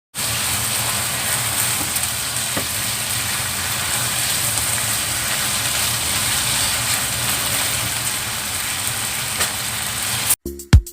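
Food sizzling steadily in a hot pan, with a few faint pops. Near the end the sizzling cuts off and music with a heavy drum beat starts.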